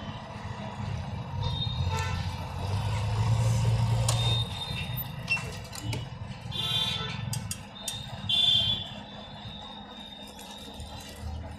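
Road traffic: vehicle engines running, with several short high-pitched beeps, the loudest near the end, and a few sharp clicks in the second half.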